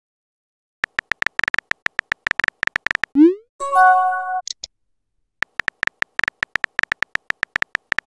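Messaging-app sound effects: a fast run of phone-keyboard tap clicks, then a short rising whoosh as a message is sent just after three seconds, followed by a short electronic chime of a few notes. After a brief pause the rapid tap clicks start again and run to the end.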